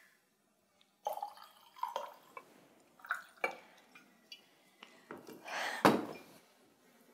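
A series of small clinks and knocks of household objects being handled, with a sharper, louder knock about six seconds in.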